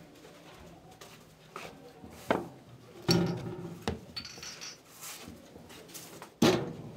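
Sharp knocks and clinks of cups and objects set down on a wooden desk: a few separate hits, the loudest near the end.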